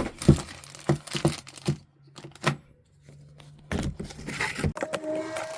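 Packaging being handled while unboxing: a series of sharp clicks and knocks, then a burst of plastic or paper rustling and crinkling.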